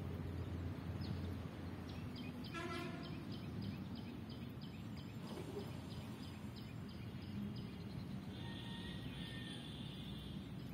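Birds calling over a steady low background noise: a long run of short, evenly spaced high chirps, about three a second, with a brief lower call among them about three seconds in and another high call around nine seconds in.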